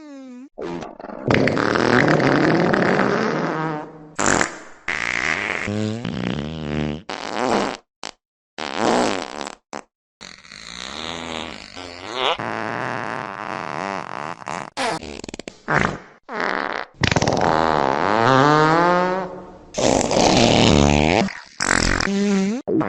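A rapid string of fart sounds, one after another. Some are short and others run for a second or more with a buzzy, wobbling pitch. Sudden short silences split them.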